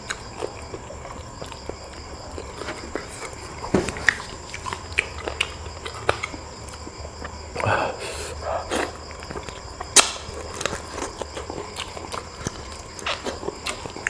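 A person eating close to the microphone: chewing and sucking with many short wet smacks and clicks, and a few brief mouth noises a little past the middle.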